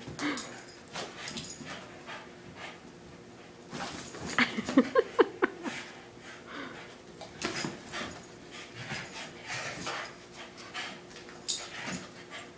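A Boston Terrier growling in short, pulsing bursts while it holds on to a tug rope and is pulled about, loudest in a run of growls a few seconds in.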